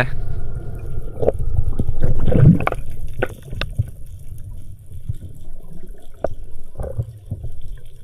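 Underwater sound heard through a camera in its housing during a freedive: a muffled, steady low rush of water with scattered sharp clicks and a few gurgles.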